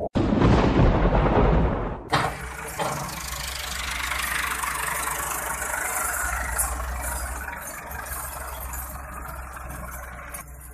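A loud crash of noise from the channel's intro, fading out over about two seconds. Then the diesel engines of a wheeled excavator and tractors run steadily under a constant low hum as the excavator loads a tractor trolley.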